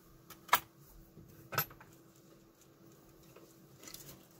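Sharp clicks and taps of small hard tools being handled on a soldering bench: two distinct clicks about a second apart near the start, then a few faint ticks near the end, over a faint steady hum.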